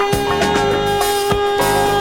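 Mid-1970s funk record playing from vinyl: a full band with one long held note over a steady drum beat.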